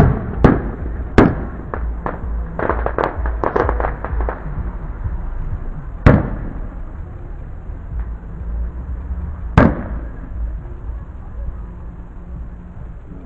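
Aerial fireworks display: a loud shell burst at the start and two more bangs within about the first second, then a run of rapid crackling pops from about two to four and a half seconds in. Single bangs follow about six and nine and a half seconds in, each trailing off in an echo.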